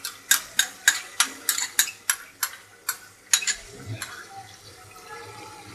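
Spoon knocking in a steady run of sharp taps, about three a second, as tomato paste is scraped and shaken out of its container into an aluminium pressure cooker. The taps stop about three and a half seconds in.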